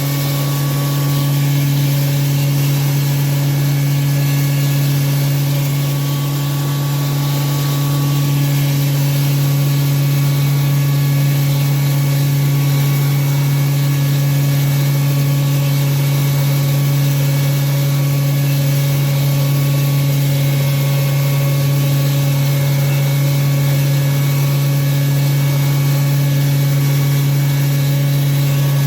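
Disk mill grinding machine running steadily, with a strong, even hum over a broad rushing noise.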